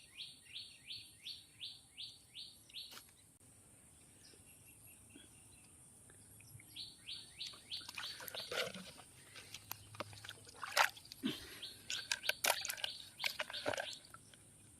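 A bird calling a run of short, downward-slurred notes, about three a second, at the start and again about seven seconds in. In the second half come scattered sharp clicks and knocks, the loudest about eleven seconds in, over a steady high hiss.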